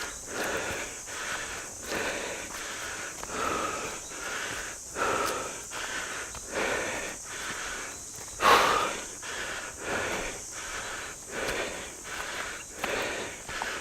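A hiker's heavy, rhythmic panting from the exertion of a steep uphill climb, a breath roughly every second or less, with one louder breath about eight and a half seconds in.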